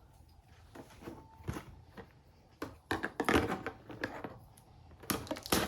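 A sealed cardboard motherboard box being opened by hand: irregular scraping and tearing handling noises, loudest about three seconds in and again near the end.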